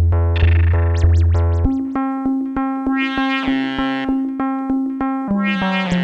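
Electronic music of repeated struck keyboard-like notes in a steady pulse. A low bass drone cuts out about a second and a half in, after which the notes come faster over a held mid-pitched tone that steps down near the end.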